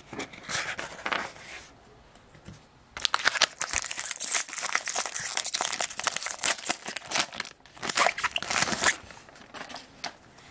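Foil wrapper of a Topps baseball card jumbo pack being torn open and crinkled by hand: a short rustle, then a dense run of crackling for about six seconds that eases off near the end.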